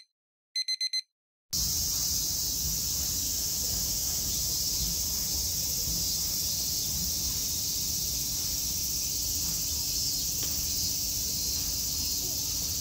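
A brief run of high electronic beeps in the first second. Then, from about a second and a half in, a steady, high, hissing chorus of summer cicadas, with a low rumble underneath.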